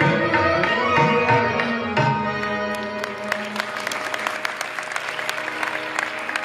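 Bhajan music with tabla strokes and a held keyboard chord; the drumming stops about two seconds in. Audience applause of irregular hand claps then sets in and goes on over the lingering sustained notes.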